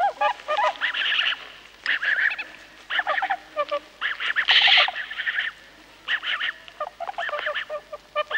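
Bewick's swans (tundra swans) calling: repeated bursts of honking, yelping calls about a second apart, several voices overlapping.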